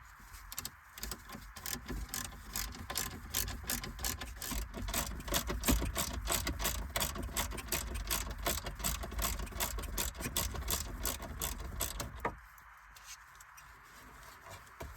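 Ratchet with a 7mm socket clicking rapidly as it backs out the bolts holding a car radio head unit, a steady run of clicks that stops suddenly near the end.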